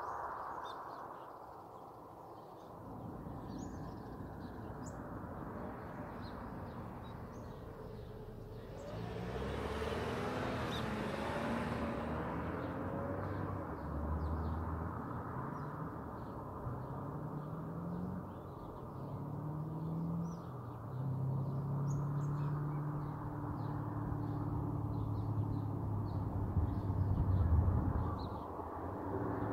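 A car engine in the distance, its pitch climbing and falling back several times as it goes up through the gears, then holding a steady note near the end, with a brief rush of noise about nine seconds in. Birds chirp throughout.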